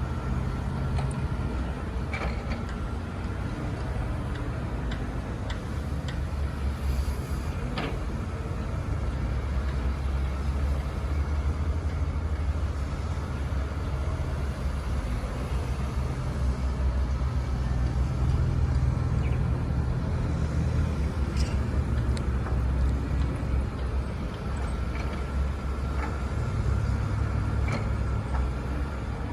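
Doosan DX225LC crawler excavator's diesel engine running, a deep steady drone that swells and eases, with a few sharp metallic clicks from the machine.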